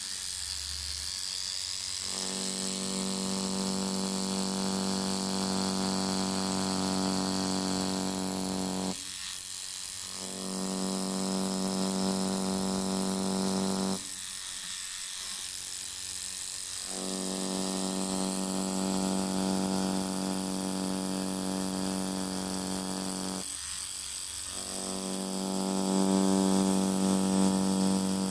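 Stingray rotary tattoo machine running with a steady electric buzz, started and stopped in four runs with short breaks about 9, 14 and 23 seconds in.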